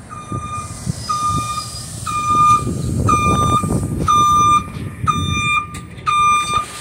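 Exterior warning beeper of a Nova Bus LFSe battery-electric city bus, sounding about once a second in short, evenly spaced high beeps as the bus pulls up to the curb and stops at its doors. Under the beeps is the low rumble of the bus.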